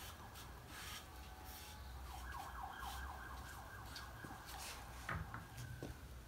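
A faint, thin high tone that holds steady with short wavering glides in pitch, over a low steady hum; a light knock about five seconds in.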